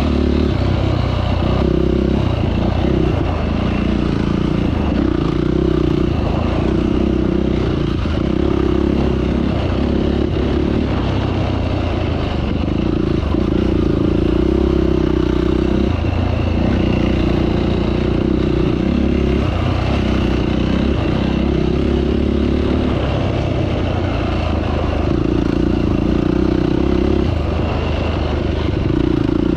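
Off-road vehicle engine running on a trail, the throttle opening and easing off every couple of seconds.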